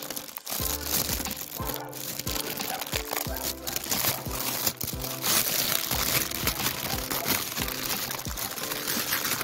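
Plastic packaging crinkling and crackling continuously close to the microphone as it is handled, over background music.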